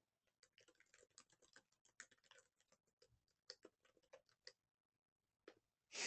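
Near silence with faint, irregular small clicks over the first few seconds, and a short puff of noise at the very end.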